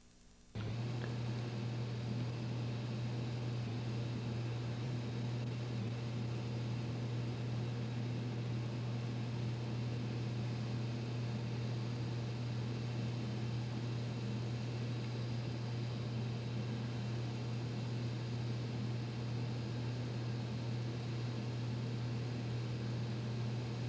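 A steady low hum with an even hiss over it, starting abruptly about half a second in and not changing after that.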